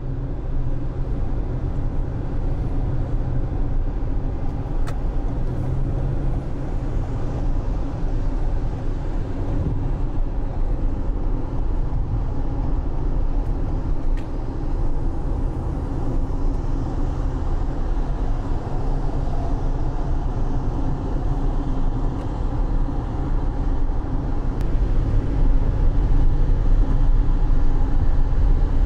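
A car driving in the rain, with a steady rumble of engine and tyres on the wet road. It grows a little louder near the end.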